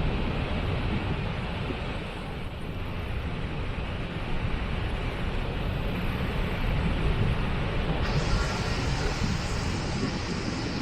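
Waterfall: water falling and rushing steadily with a deep rumble, a brighter hiss joining about eight seconds in.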